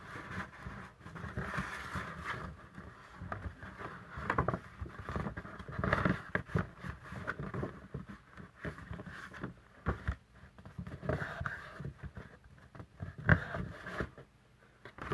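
Cardstock being handled and its folds worked by hand: irregular rustling, scraping and light taps, with one sharper tap near the end.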